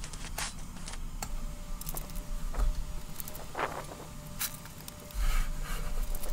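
Scattered clicks and short scuffs as a camera on a tripod is handled and moved around, over a steady low rumble.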